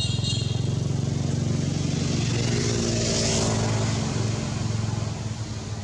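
A motor engine running steadily, with its pitch rising briefly in the middle and easing off again.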